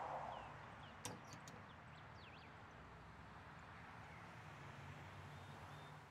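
Faint outdoor ambience with a low steady hum, a few short bird chirps and a single sharp click about a second in.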